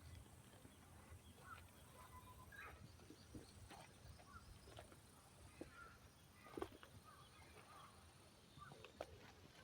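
Near silence with faint scattered chirps and a few light clicks, one click louder about two-thirds of the way in.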